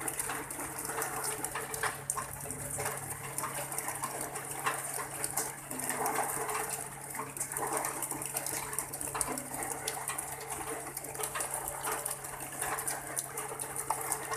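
Steady rain falling, with many small drop splashes pattering throughout and a faint steady hum underneath.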